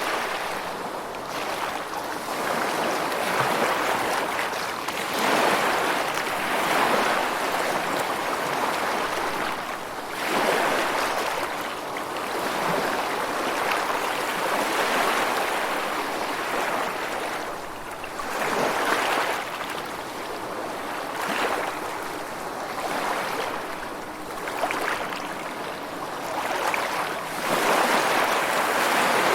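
Steady rushing water that swells and eases every few seconds, like surf washing in.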